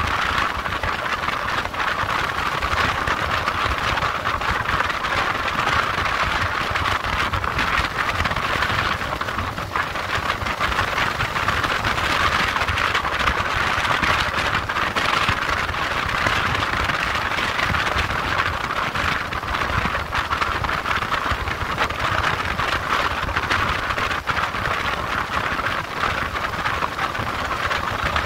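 Motorcycle riding at a steady road speed: an even rush of wind and road noise, with the engine running underneath.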